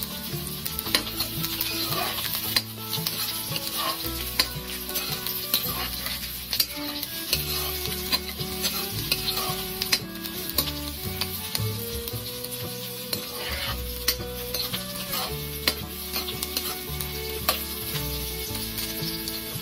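Sliced red onions and garlic sizzling in hot oil as they are stirred in a pot, with a utensil clicking against the pot every second or two. Background music plays underneath.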